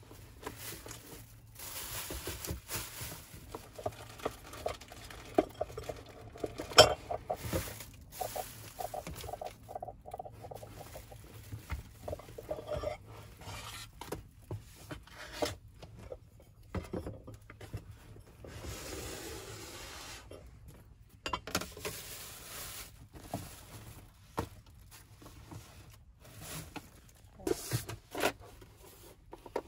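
Plastic bags rustling and crinkling as food is unwrapped, with light knocks and clatters of containers and a bowl being set down on a table. One sharper knock about seven seconds in.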